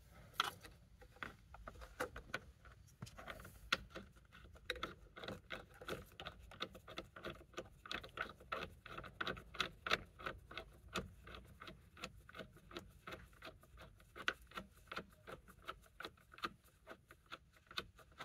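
Steering wheel bolt of a BMW Z4 M Roadster being turned in by hand onto the steering shaft: a faint, irregular run of small metallic clicks and scrapes, several a second.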